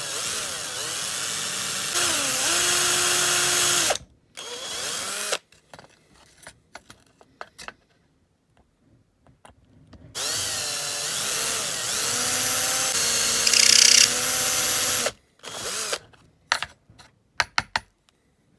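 Electric drill drilling out the zinc-alloy rivet posts of a Lesney Matchbox die-cast Ford Thunderbird to take the model apart. There are two long runs of several seconds each, with the motor's pitch sagging and recovering as the bit bites, and a few short bursts. Between the runs come small clicks and taps.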